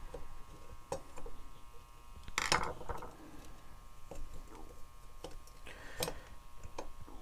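Metal parts of a turntable motor and drive plate being taken apart by hand with a screwdriver on a workbench: scattered light clicks and taps, a louder rattling scrape about two and a half seconds in, and a sharp click about six seconds in.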